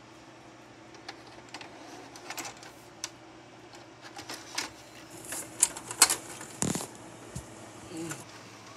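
A VHS cassette is pushed into the slot of a DVD/VCR combo deck: scattered plastic clicks and clatter of the tape and the slot flap, then a second or two of whirring and clicking as the loading mechanism draws the tape in, with the loudest click about six seconds in.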